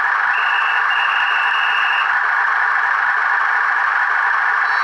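Model railcar's sound decoder playing a diesel railcar engine (an ESU Poyaud engine sound) as a steady, thin, tinny running noise through the model's small built-in speaker. A thin high tone sounds briefly twice in the first two seconds.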